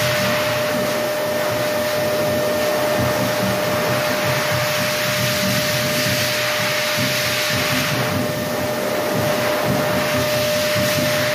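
An electric blower-type machine running steadily: an even rushing hiss with one constant whine held at a single pitch.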